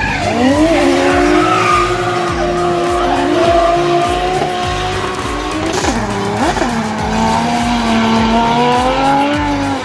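Drift cars sliding through a corner, their engines held high in the revs with a steady drone while the tyres screech. The engine pitch dips and climbs back about six seconds in.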